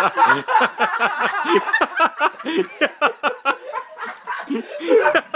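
Several people laughing and snickering at once in quick, choppy bursts.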